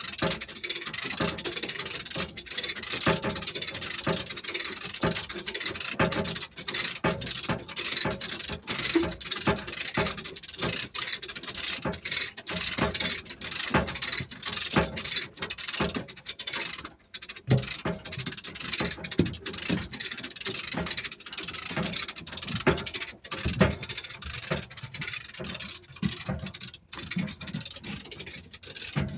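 Hand-operated chain lever hoists (come-alongs) being ratcheted, their pawls clicking over and over and their load chains rattling as they drag a heavy alternator along steel rails. The clicking is irregular and keeps up the whole time.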